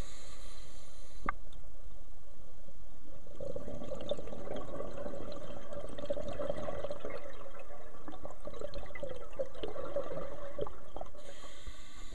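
Scuba diver's regulator breathing underwater. A short hiss of inhalation, then a long exhalation of bubbles burbling and crackling for several seconds, then another inhaling hiss near the end.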